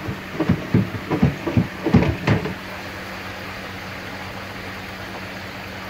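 A quick run of knocks and bumps in the first two and a half seconds, then a steady rush of heavily aerated water churning in a K1 micro moving bed filter, over the constant low hum of the Charles Austin ET80 linear air pump driving it.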